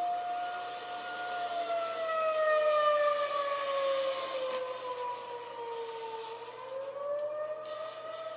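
Outdoor tornado warning siren sounding a steady tone. About two seconds in, its pitch slowly falls, then rises back near the end.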